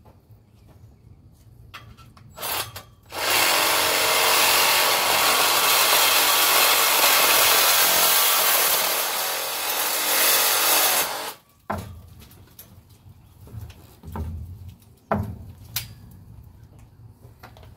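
Cordless reciprocating saw cutting through the metal tubing of a tent frame: a short burst, then about eight seconds of steady cutting that cuts off suddenly. A few knocks follow as the cut frame shifts.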